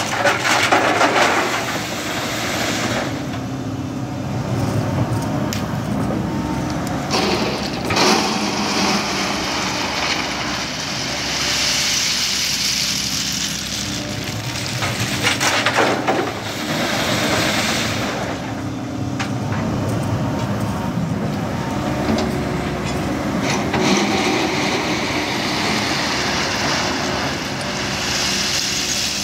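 SANY crawler excavator's diesel engine running steadily while it scoops crushed-stone ballast and dumps it into a tipper truck's steel body. The stones clatter and pour in several surges of a second or two.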